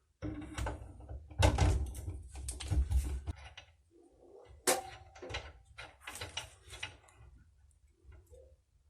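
A series of knocks and clanks as metal parts are handled and set down, one of them briefly ringing about halfway through.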